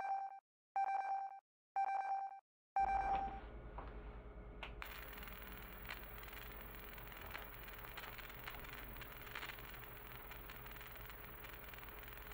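Four short electronic beeps about a second apart, then the steady hum and hiss of a high-voltage plasma arc swirling around an electrode in a ring magnet's field, starting about three seconds in and turning hissier about two seconds later.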